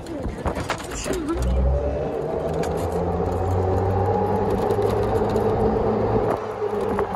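Golf cart driving on a paved road: a steady whine that rises in pitch over the first few seconds as it speeds up, then holds, over a low rumble. A few knocks near the start.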